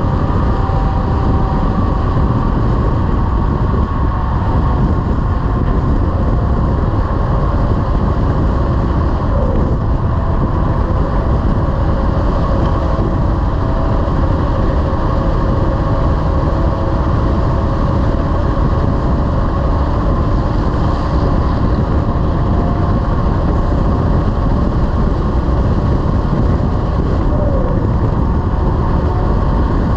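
Heavy-haul semi truck driving at a steady pace: a continuous low engine drone mixed with road noise.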